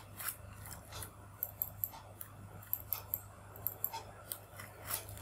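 Irregular light clicks of a computer keyboard and mouse during text editing, over a low steady hum.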